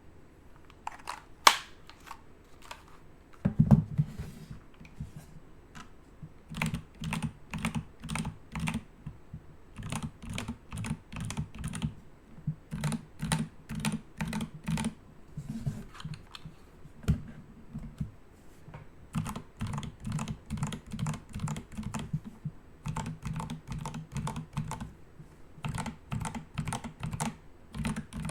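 Typing on a keyboard: runs of quick keystrokes, several a second, each a click with a dull thud, broken by short pauses. A loud single click comes near the start and a heavier thump a few seconds in.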